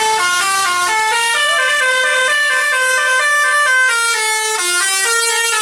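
Bus telolet horn, a multi-tone air horn, playing a fast melody of short held notes that step up and down, with several tones sounding together.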